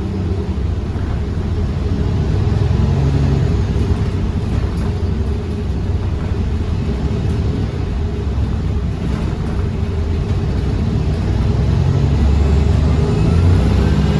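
Iveco Urbanway 18 Hybrid articulated city bus running, a steady low rumble of drivetrain and road. Near the end a faint whine rises and then falls.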